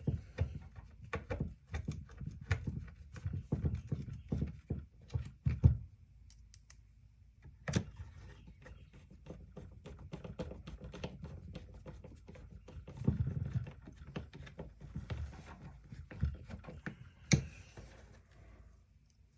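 Parts of a DeWalt DCF885 cordless impact driver being handled and fitted back together on a workbench: irregular clicks, knocks and low thunks of plastic housing and small metal parts, with a few sharper clicks.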